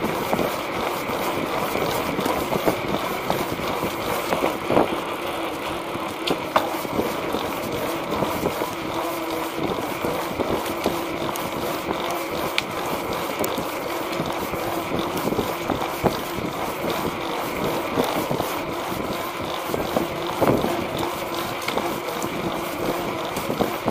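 Steady rolling noise of a small wheeled ride on a concrete sidewalk, with wind on the microphone and scattered short clicks and knocks from the pavement.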